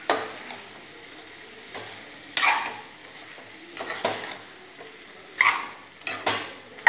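Metal spoon scraping and knocking against a steel kadai as drumstick pieces are stirred through a thick tomato gravy, in repeated short strokes, over a low sizzle from the pan.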